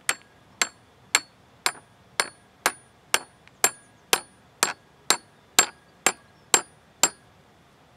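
Hammer driving the small metal pin of a Caperlan rod pod stabilizer stake into hard ground: about fifteen steady blows, two a second, each with a short metallic ring, stopping about seven seconds in.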